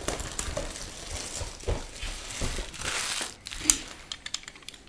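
Clear plastic shrink-wrap being pulled off a cardboard box of trading cards, crinkling and crackling, with a cluster of sharper crackles about three and a half seconds in and only a few light ticks near the end.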